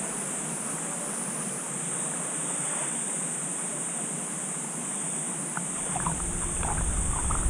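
Pool water sloshing and lapping around an action camera held at the waterline by a swimmer, with small splashes; from about six seconds in, the low churning gets louder as the camera is pushed through the water with the strokes.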